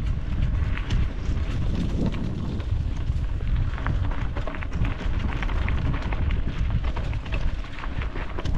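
Bike rolling fast over rough trail, with a dense run of small clicks and rattles from the bike and the ground, and wind rumbling on the camera microphone.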